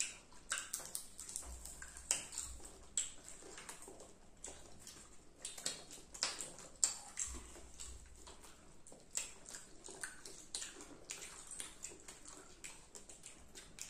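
Close-up eating sounds from children chewing popcorn and juicy pineapple: an irregular run of wet mouth clicks, smacks and crunches, several a second.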